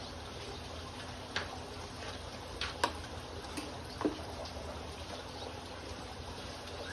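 Aquarium water trickling and circulating steadily over a low hum, with a few short sharp clicks between about one and a half and four seconds in.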